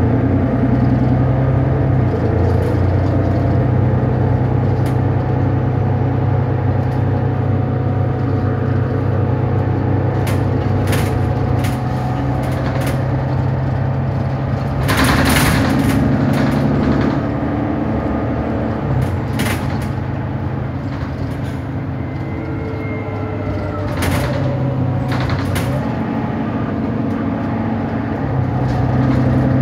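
Cabin sound of a Mercedes-Benz Citaro single-deck bus on the move: a steady diesel engine drone, with clicks and rattles from the bodywork. A brief burst of air hiss about halfway through is the loudest moment. The engine note eases off in the second half and picks up again near the end.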